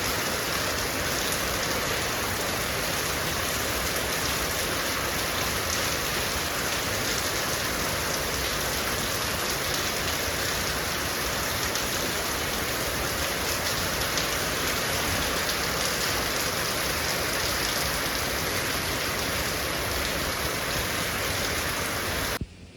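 Heavy rain falling steadily, a dense even hiss. It cuts off suddenly near the end.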